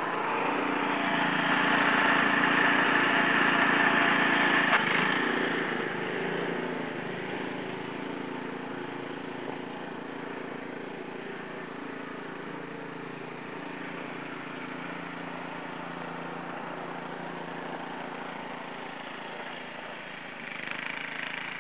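Snowblower's small engine running steadily, louder for the first five seconds or so, then settling to a lower, even level.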